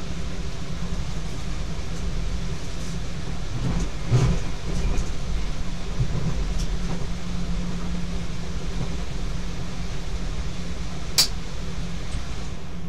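Cab of a Z 50000 Francilien electric multiple unit running along the line: a steady rumble of wheels and running gear. A cluster of knocks comes about four seconds in, and a single sharp click near the end.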